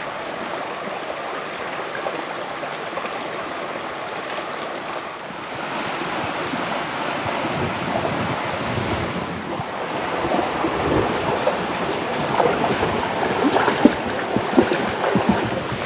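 River water rushing steadily. About ten seconds in it grows louder and rougher, with scattered low thuds.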